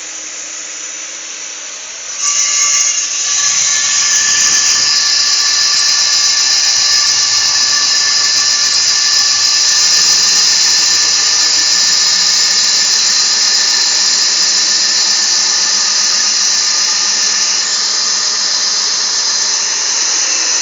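Husqvarna DM280 electric core drill running with a loud, steady, high-pitched whine that starts suddenly about two seconds in.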